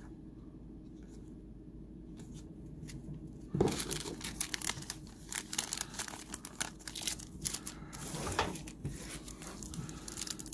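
A foil trading-card pack wrapper being torn open and crinkled as the cards are pulled out. It starts suddenly about a third of the way in, after a few soft clicks of cards being handled, and keeps crackling densely.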